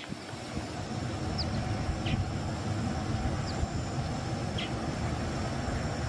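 Outdoor ambience: a steady low rumble with four faint, short, high chirps from small birds spread through it.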